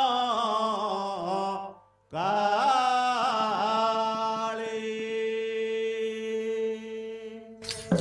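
Male lead singer of an Odia Pala singing unaccompanied through a microphone, in long drawn-out lines whose pitch bends and wavers. He breaks off briefly about two seconds in, then holds the next line on one steady note until it fades near the end.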